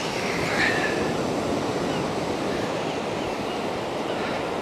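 Steady rush of sea surf breaking on the shore.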